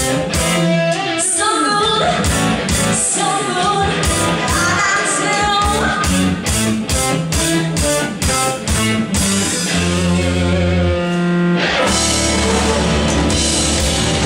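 Rock music with singing and guitar over a steady drum beat. A little past halfway the beat stops and long held chords ring on.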